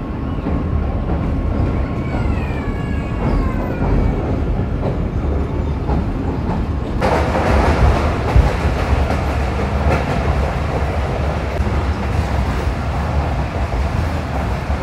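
Passenger train running, heard from inside the carriage: a steady rumble of wheels on the track. About seven seconds in the noise turns brighter and harsher.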